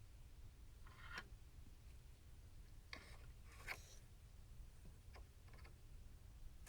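Near silence over a low steady hum, with a few faint clicks and scrapes of small parts being handled, around one, three and five seconds in.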